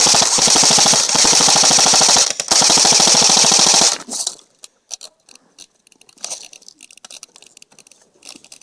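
Airsoft rifle firing a long, rapid full-auto burst at close range, a fast even rattle of shots with a brief break about two and a half seconds in. It cuts off suddenly about four seconds in, leaving faint clicks and rustling.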